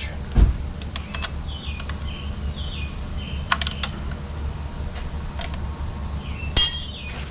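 Metal hand tools clicking and clinking as wrenches are sorted through in search of a half-inch one. There is a thump about half a second in and a sharp, ringing metal clink near the end, over a steady low hum.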